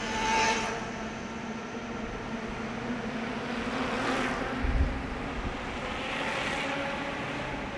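Three electric mid-drive bikes passing one after another under load, the motor whine and tyre hiss swelling and fading with each pass: first a Bafang M600 with its metal gear, then an M600 with a PEEK plastic gear, then a Bafang BBSHD. A brief low thump comes a little before the third pass.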